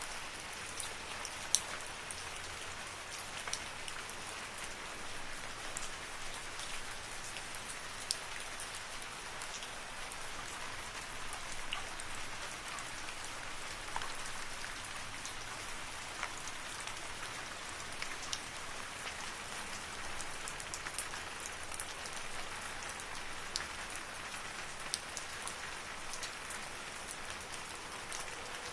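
Steady rain in a forest, a constant hiss with many individual drops ticking sharply on leaves and surfaces.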